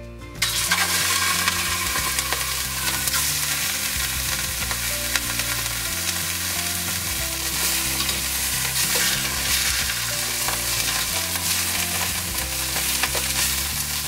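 Boneless pork leg searing in hot oil in a stainless pot: a loud, steady sizzle that starts suddenly about half a second in, as the meat goes into the pan, while it is turned with metal tongs.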